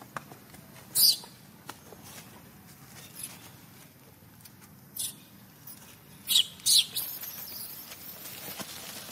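Newborn macaque giving short, high-pitched squeals: one about a second in, another around five seconds, and two close together a little after six seconds.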